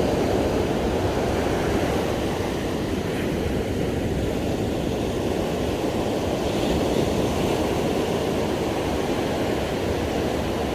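Steady roar of ocean surf breaking on a sandy beach, an even noise with no pauses.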